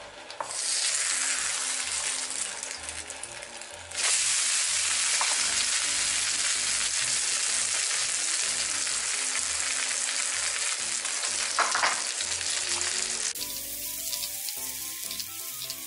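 A Korean batter pancake (jeon) with sea worms and vegetables sizzling as it fries in oil in a nonstick frying pan. The sizzle gets louder about four seconds in, once the pancake has been flipped, and softens near the end.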